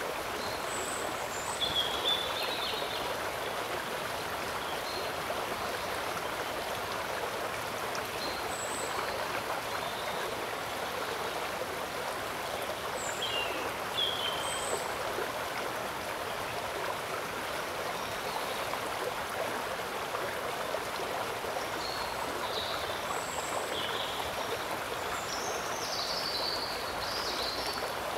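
Steady rush of shallow flowing water, with scattered short high-pitched chirps over it, most of them in the last few seconds.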